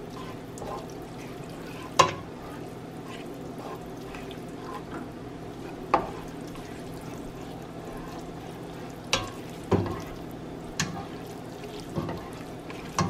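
A plastic slotted spoon stirring wet ramen noodles in a stainless steel pot, with sharp knocks of the spoon against the pot, one about two seconds in, one near six seconds, and several close together over the last four seconds, over a steady low hum.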